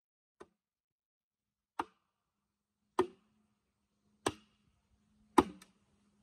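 A hand tool striking wood or bamboo in slow, spaced chopping blows, about one every second or so and getting louder, with two strikes close together near the end.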